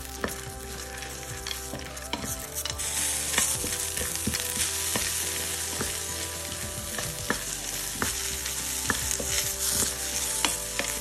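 Peanut halves frying in a stainless steel pan, stirred with a wooden spoon: scattered clicks of nuts and spoon against the pan over a steady sizzle that gets louder about three seconds in.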